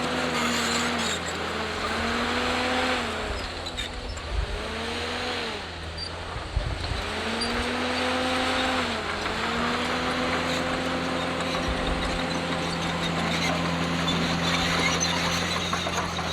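Komatsu D51PX crawler bulldozer working under load: its diesel engine runs with a pitched drone that sags and recovers again and again as the blade takes and sheds load, over the clatter of tracks and pushed stone. A couple of clanks come about four and six and a half seconds in.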